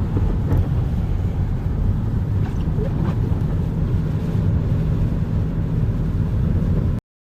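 Steady low rumble of a car driving, heard from inside the cabin: road and engine noise. It cuts off abruptly near the end.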